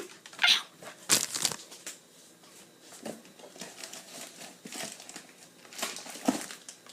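Plastic slime bag crinkling in a few short bursts as it is handled.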